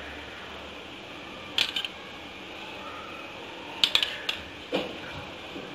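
Spoon clinking against a glass bowl and yogurt container while dolloping yogurt, a few sharp clinks in three small groups.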